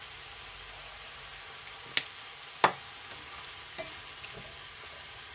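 Mixed vegetables and mushrooms sizzling in oil in a frying pan, a steady hiss, while a wooden spatula stirs them. The spatula knocks sharply against the pan twice about two seconds in, then taps more lightly a couple of times.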